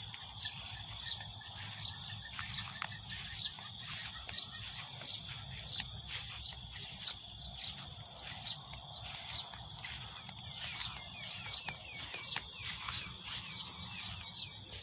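Insects in a field holding a steady high-pitched trill, with short falling chirps repeating about once or twice a second over it.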